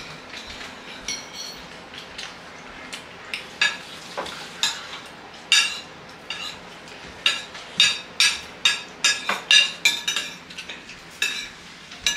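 Metal fork and spoon clinking and scraping against ceramic plates. The sharp clinks come sparsely at first and then close together through the second half.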